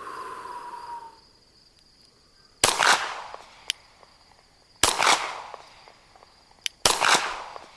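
Three shots from a 9mm Glock 34 pistol, about two seconds apart, each with a short echo, fired at steel pepper poppers 50 yards out.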